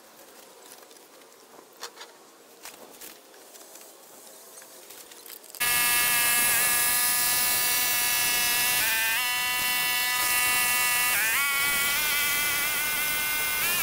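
Faint background with a few light clicks, then, about five and a half seconds in, a Pasquali 996 compact tractor with its rotary tiller comes in loud, running with a steady whining drone. The pitch rises briefly three times as the load and revs change.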